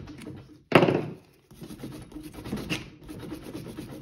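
Small flat-blade screwdriver scraping rust buildup out of the pad slider channels of a brake caliper bracket, metal on metal, in short scratchy strokes. A loud sudden hit of the tool on the bracket comes about three-quarters of a second in.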